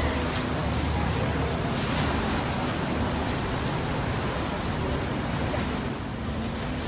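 A river sightseeing boat's engine hums steadily under the rush of water and wind buffeting the microphone, heard from on board while under way.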